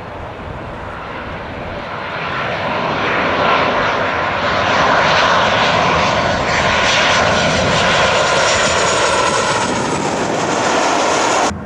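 Boeing 737 airliner's jet engines on landing approach, passing low overhead: a rushing engine noise that swells over the first few seconds and stays loud, with a whine that falls in pitch as the jet goes by. It cuts off suddenly near the end.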